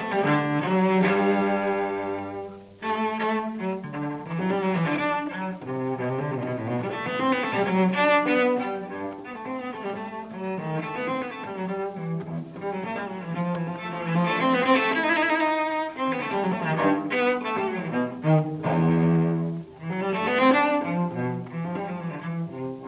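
Recorded classical music led by a bowed cello, a flowing melody with short breaks between phrases, one about three seconds in and another near the end.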